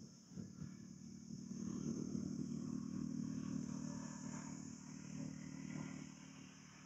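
A motor vehicle engine humming, growing louder over the first couple of seconds and fading away toward the end, over a steady high insect chirring.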